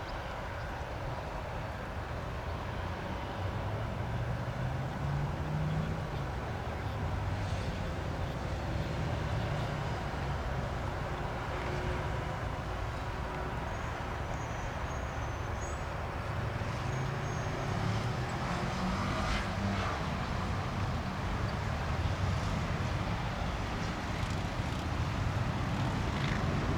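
Piper PA-28-161 Warrior III's four-cylinder air-cooled piston engine running steadily, its pitch rising and falling slightly.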